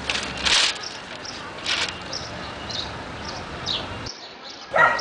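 Newspaper pages rustling as they are lifted and opened, once near the start and again briefly a little later, with short high chirps of a sparrow scattered through.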